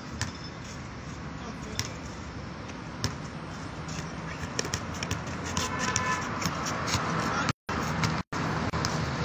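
Basketball being dribbled on an outdoor hard court: irregular sharp bounces over steady background noise, with faint voices of players.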